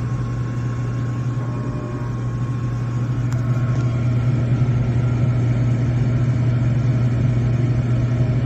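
Gas furnace running in its post-purge with the blower fan on: a steady motor hum that grows a little louder about three seconds in.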